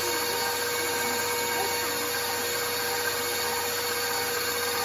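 Electric stand mixer running steadily, its wire whisk whipping a thin liquid mixture in a stainless steel bowl: a constant motor whine that holds one pitch throughout.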